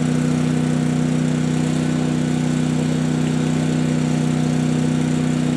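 Generator and air compressor running with a steady, even hum, the equipment that charges the air cannon with compressed air.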